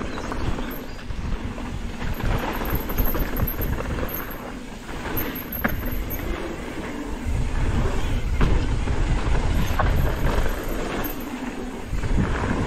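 Wind buffeting the microphone and tyres rumbling over a dirt trail as a downhill mountain bike is ridden fast, with occasional short knocks and rattles from the bike over rough ground.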